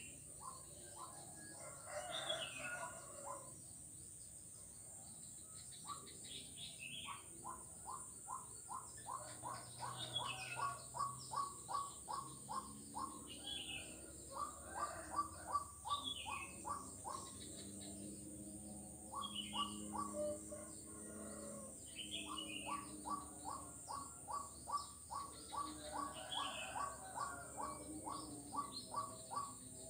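Frogs calling: long runs of short, evenly repeated notes, about four a second, each run lasting several seconds. A high, falling call repeats every two to three seconds over them, and a steady high hiss runs underneath.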